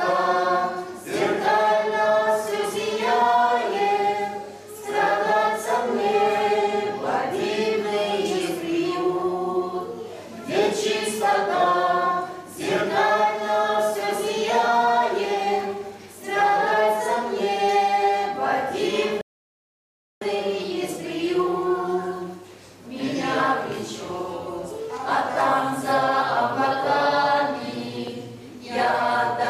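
Small mixed choir of men and women singing a hymn together in long, held phrases. About two-thirds of the way through, the sound cuts out completely for about a second, then the singing resumes.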